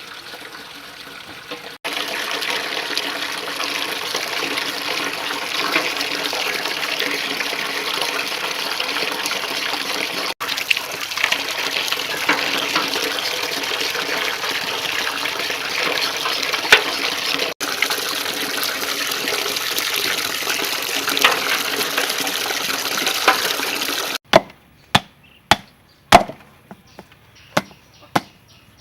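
Water running from a tap and splashing into a sink with small knocks. About four seconds before the end it gives way to a run of sharp chops on a cutting board, about two a second.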